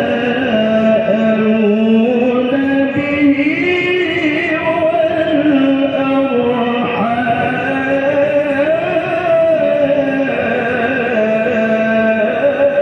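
A man's voice reciting the Qur'an in the melodic tilawah style, sung into a handheld microphone: long held, ornamented notes that slide up and down in one continuous phrase.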